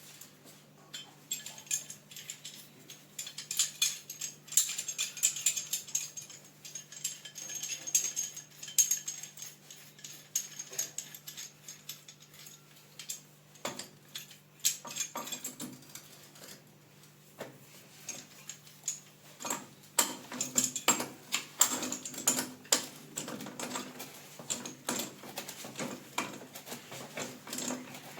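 Scraping and clicking from uPVC pipe and fittings being worked by hand, in bursts, over a faint steady hum.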